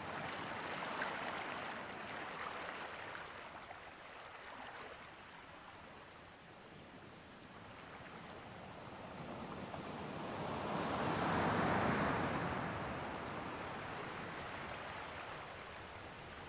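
Ocean surf breaking and washing up a beach. It swells once near the start and again, louder, about two-thirds of the way in, then draws back.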